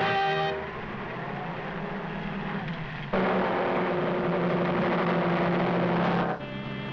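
Cartoon sound effect of the villains' rocket car engine: a steady rushing noise that jumps to a much louder, steady rush with a low hum about three seconds in, then drops away suddenly near the end.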